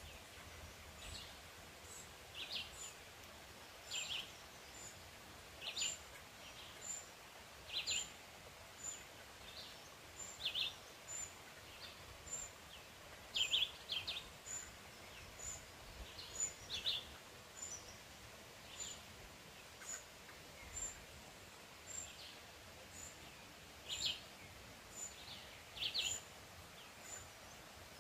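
Wild birds singing in woodland: short, faint calls repeated every second or two, a few louder ones about halfway through, with a thin high note repeating about once a second.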